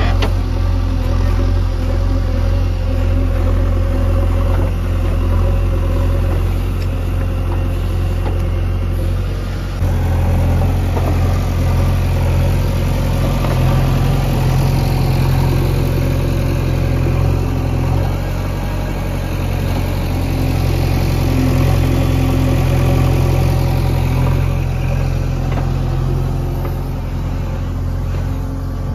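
JCB 3DX backhoe loader's diesel engine running steadily while the machine works. The engine speed steps up about ten seconds in and eases a little some eight seconds later, as the load on it changes.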